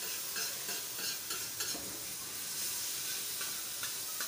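Chopped tomato masala sizzling on a flat tawa griddle, with steel spatula tongs scraping and tapping against the griddle in several short strokes over a steady frying hiss.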